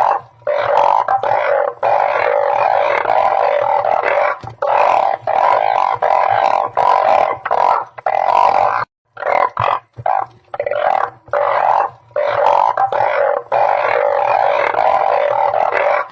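Chorus of blunt-headed burrowing frogs (Glyphoglossus molossus) calling, dense overlapping droning calls with a few short breaks.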